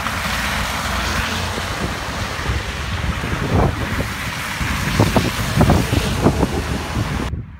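Wind buffeting the microphone with a steady low rumble, and a run of short, irregular noises in the second half. The sound cuts off abruptly near the end.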